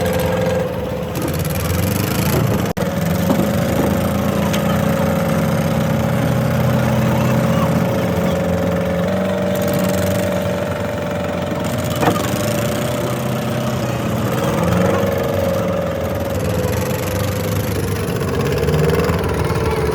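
Boat engine running steadily with a constant drone, with a brief dropout about three seconds in and a single knock about twelve seconds in.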